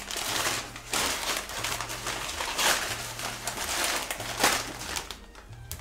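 Newspaper wrapping and a plastic snack bag rustling and crinkling as they are handled, in uneven spells of louder and softer rustling.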